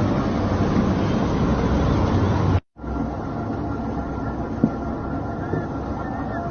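Boat engine running steadily amid wind and sea noise. The sound cuts out for an instant just under three seconds in, then carries on a little quieter with a steady hum and a short knock.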